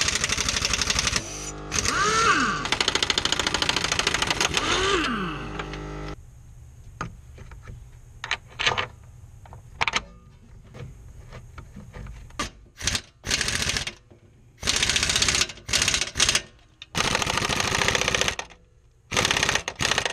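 Pneumatic impact wrench (air hammer) driving the shock absorber mounting bolts tight. There is a continuous run of rapid hammering for about six seconds, its pitch sweeping up and down twice, then many short rattling bursts.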